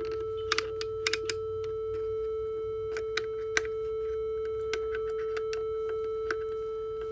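Behringer synthesizer sounding a single steady mid-pitched tone that does not change, while its switches are clicked about a dozen times: the tone is stuck, and the controls, decay and oscillators have no effect on it.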